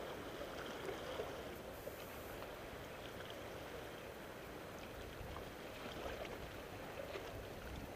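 Faint, steady outdoor background noise: an even hiss with no distinct events.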